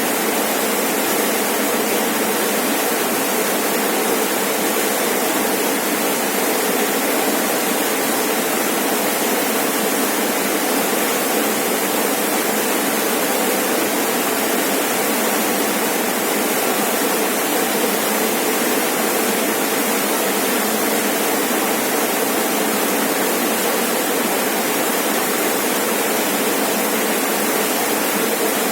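Rainforest waterfall: water falling and splashing in a steady, even rush that does not change.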